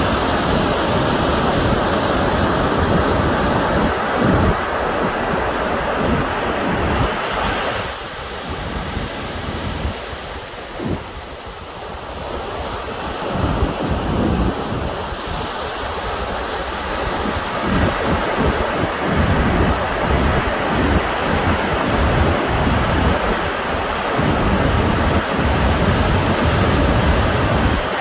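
Wind gusting on the microphone over the steady wash of surf, easing off for a few seconds about a third of the way in.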